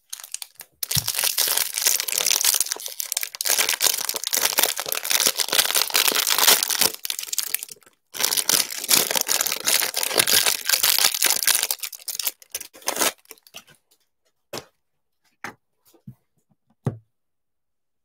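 Plastic wrapper of a football trading-card hanger pack being torn open and crinkled in two long stretches, the first about seven seconds and the second about five, then a few light clicks near the end.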